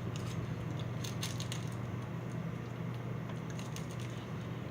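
A few light clicks and small rattles, like small objects being handled, over a steady low hum.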